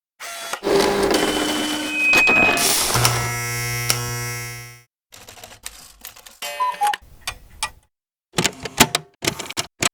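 A rapid string of assorted sound effects: clattering and clicks, a short high whistle-like tone about two seconds in, then a steady low buzz for under two seconds, followed by scattered short clicks and blips.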